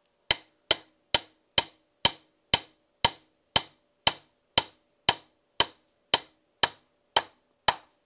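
Hammer driving a nail into a weathered wooden board: about sixteen even blows, two a second, each a sharp knock with a short ring.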